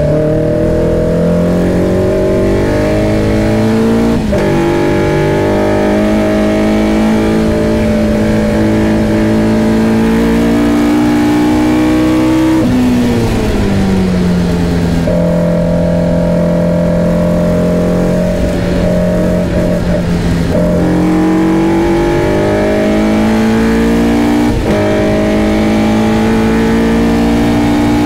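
Caterham Seven engine driven hard on track, its pitch climbing through the gears with sharp breaks at upshifts, about four seconds in, around twenty seconds in and again near twenty-five seconds in. About thirteen seconds in the pitch slides down, holds steady for several seconds, then climbs again.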